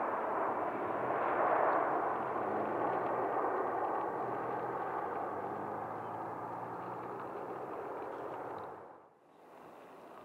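Boeing 737-800 jet engines (CFM56-7B) running loud on the landing rollout, the roar slowly dying away as the airliner slows on the runway. About nine seconds in it cuts to a much fainter steady noise.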